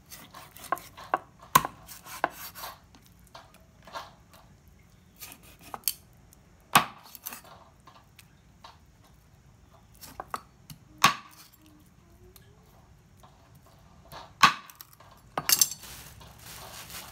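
Large knife chopping through pieces of largehead hairtail onto a wooden chopping block: irregular sharp knocks of the blade on the wood a few seconds apart, a handful of them much louder, with softer scraping and handling of the fish between.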